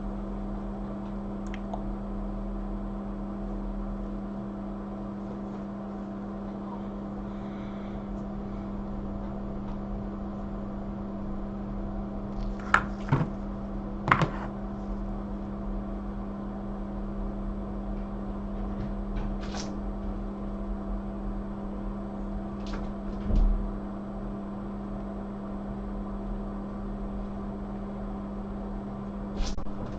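Steady electrical hum from running workbench equipment, with a few short clicks and taps scattered through it.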